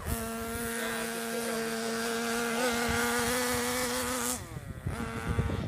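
A small motor running at a steady high speed with a buzzing tone, which winds down and stops about four seconds in, then starts again briefly near the end.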